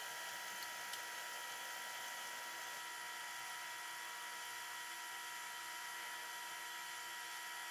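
Faint, steady, high-pitched electrical whine of several held tones over a low hiss: background room tone.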